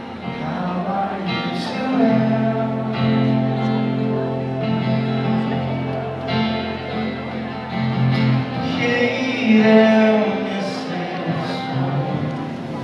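Live indie band playing a song: strummed acoustic guitar, electric guitar and bass guitar, with a male voice singing the melody.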